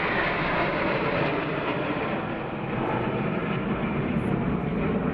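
Formation of military jet fighters flying past overhead: a loud, steady jet engine rumble, with a whine falling in pitch over the first second or so as the aircraft pass.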